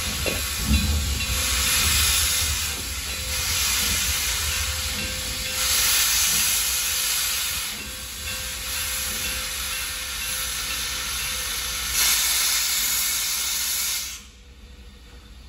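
0-6-0 steam locomotive venting steam with a loud hiss that swells and eases several times, then stops abruptly near the end.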